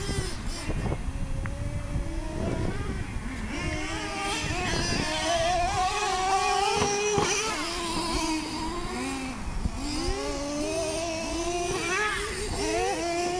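Small two-stroke nitro engines of two Traxxas RC monster trucks, a T-Maxx and a Revo, buzzing and revving up and down in pitch again and again as they drive.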